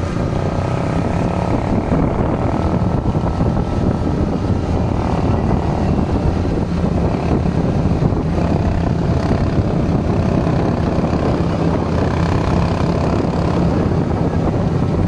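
Motorcycle engine of a passenger tricycle running steadily at cruising speed, heard from aboard, a continuous even drone with road noise.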